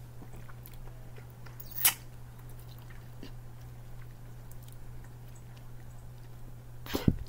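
A person chewing bubble gum with soft mouth clicks while trying to blow a bubble, with two sharp louder snaps, one about two seconds in and one near the end.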